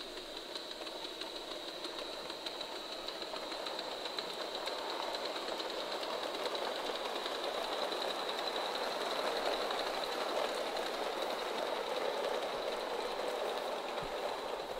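Coal-fired live-steam Gauge 3 model locomotive running with its coaches along a garden track, growing louder as it approaches and loudest about two-thirds of the way in.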